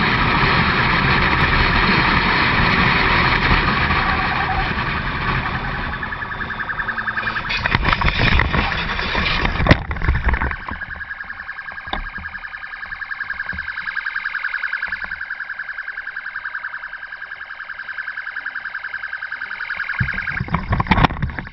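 Motorcycle riding at speed, its engine under heavy wind rush, then a crash: a run of hard knocks and impacts over about two seconds. After it, the road noise drops away and a steady, rapidly pulsing alarm-like tone goes on.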